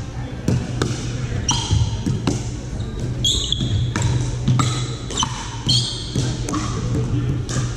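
Plastic pickleball struck by paddles in a fast rally: repeated sharp pops, about two a second, ringing in a large gym hall over a steady low hum.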